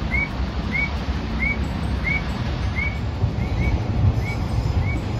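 Hiroden low-floor articulated tram running past the stop with a steady low rumble. Over it, a short high chirp that rises and falls repeats about every two-thirds of a second.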